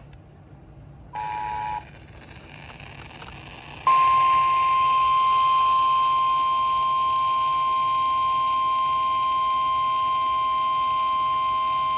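A brief two-tone Emergency Alert System attention signal about a second in, then, from about four seconds in, the NOAA Weather Radio warning alarm tone: one steady, unbroken beep. The tone marks a warning about to be broadcast.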